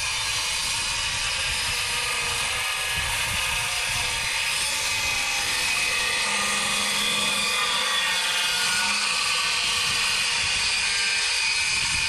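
A power tool motor running steadily under load, a continuous high whirring without pauses.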